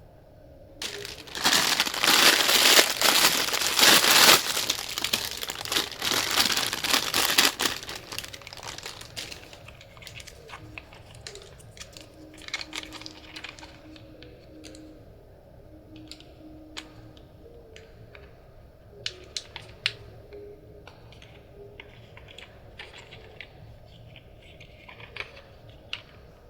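Crinkling and crumpling, dense and loud for about seven seconds near the start, then thinning to scattered crinkles and light clicks.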